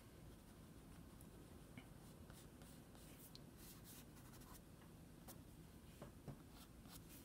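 Faint, irregular scratching of a soft pastel stroked across toned paper in short strokes.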